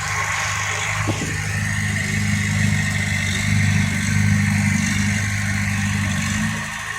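Diesel engine of a heavy machine running steadily, growing a little louder through the middle and easing off near the end, with a single knock about a second in.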